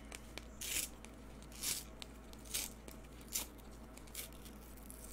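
A Topps Rip baseball card being torn open by hand to reach the mini card inside: faint card stock ripping in five short pulls about a second apart, with small clicks between.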